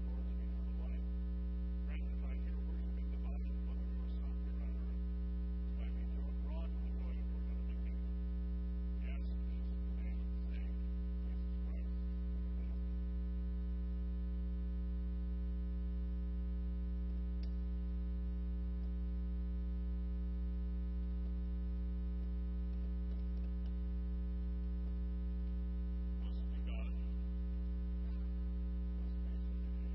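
Steady electrical mains hum, a low drone with a stack of overtones. A few faint knocks and rustles come through a few seconds in and again near the end.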